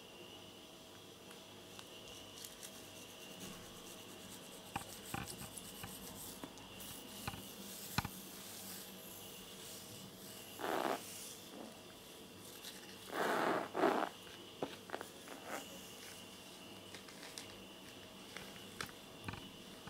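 Clear plastic bag crinkling and rustling as a kitten lying inside it moves against the plastic: scattered small crackles, with two louder rustles about eleven and thirteen seconds in.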